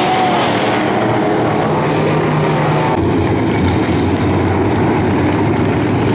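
Several dirt-track modified race cars' V8 engines running together in a loud, steady drone. The engine pitch rises and falls near the start, then holds steady.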